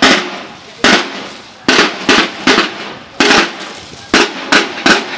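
Marching drums beating a slow processional cadence: sharp strikes roughly one or two a second, some in quick pairs, each ringing briefly.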